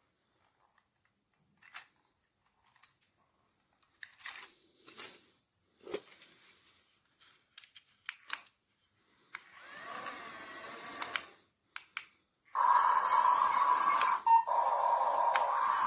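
Small electric gear motors of a toy RC excavator running, starting loud and steady after some light plastic clicks, with a brief break partway through.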